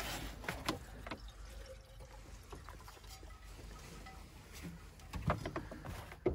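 Scattered light clicks and knocks from handling a portable gas cartridge stove, a few near the start and a small cluster about five seconds in.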